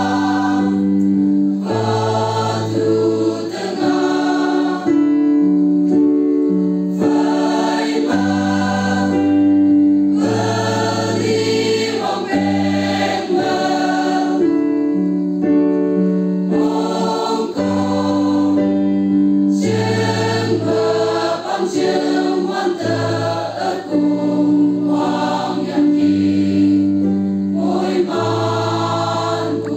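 Large mixed choir of young women and men singing together in harmony, in sustained sung phrases a few seconds long.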